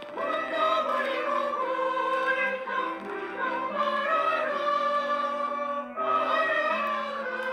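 Church choir singing a hymn in parts, with long held notes and a brief pause for breath about six seconds in.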